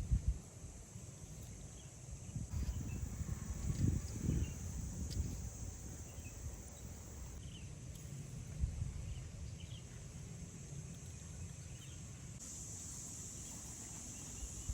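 Steady high-pitched chorus of insects in the background, getting louder near the end, with faint short chirps and a few low thuds and rumbles.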